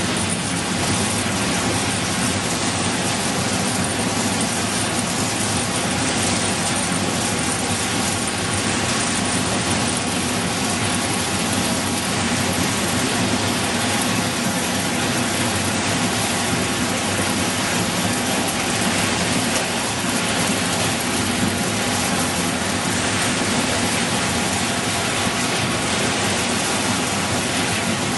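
Machinery of a corn flake extrusion production line running: a steady, unchanging mechanical noise with a low hum underneath.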